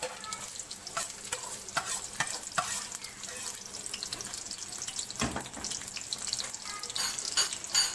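Sliced onions frying in hot oil in a karahi: a steady sizzle with many short crackles and pops as the onions go into the oil.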